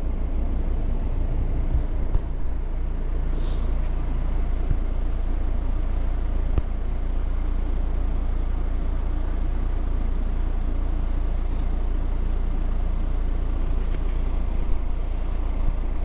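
Coleman HC20 heat pump outdoor unit running steadily in heating mode shortly after start-up: a steady low compressor hum under the rush of the condenser fan.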